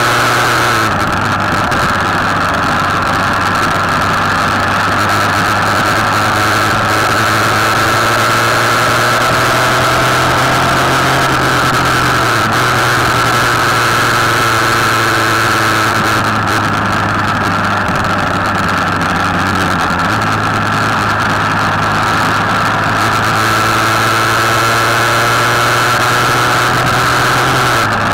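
Motorcycle engine running steadily on the road, heard from the bike itself with steady wind rush over the microphone. The engine note steps down about a second in and again around the middle, rises a few seconds later, and steps down again near the end, as the rider changes gear or throttle.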